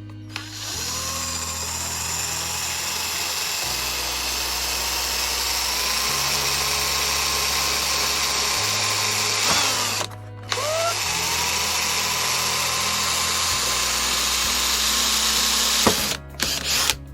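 Electric drill boring a small pilot hole through plastic car trim, running in two long spells with a brief stop about ten seconds in; each time the motor's whine rises as it spins up. A few sharp clicks near the end.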